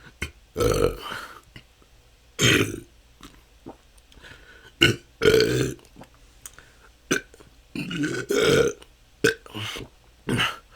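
A person belching naturally, one unforced burp after another: about five belches, each under a second, with short pauses and faint mouth clicks between them. They are part of a long bout of chronic excessive burping.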